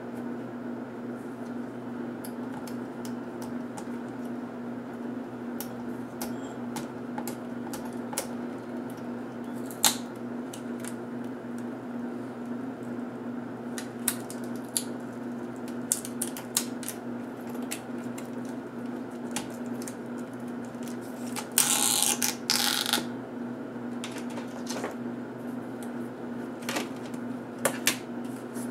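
Small clicks and taps of hands handling a laptop LCD panel and its cable, over a steady electrical hum, with one brief rough scraping noise a little past the middle.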